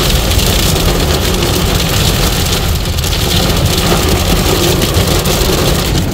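Heavy storm rain beating on a moving car's roof and windshield, heard from inside the car as a loud, steady hiss with tyre noise from the flooded road beneath.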